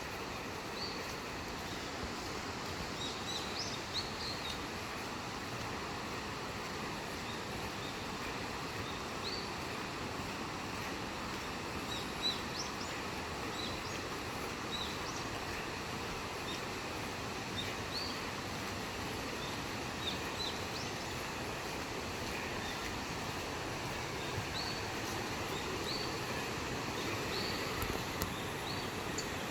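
Mountain stream water flowing loudly and steadily, an even rushing noise that grows slightly louder toward the end. Short high bird chirps sound now and then over it.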